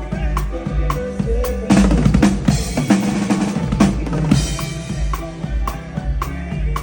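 Live band playing at a sound check, the drum kit loudest: a steady beat over a bass line, broken by a busy drum fill about two seconds in and a cymbal crash about four seconds in.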